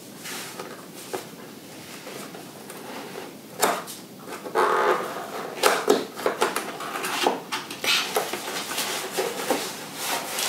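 Flat cardboard box being opened by hand: scattered scrapes, taps and rustles of the lid and flap, with a few sharper knocks partway through.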